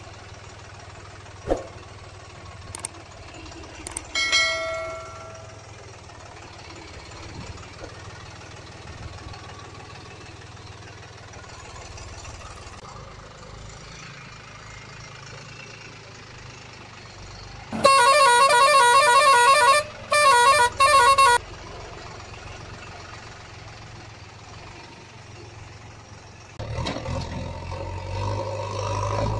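Truck horn honking: one long blast, then two short ones. Near the end a steady engine-like hum starts.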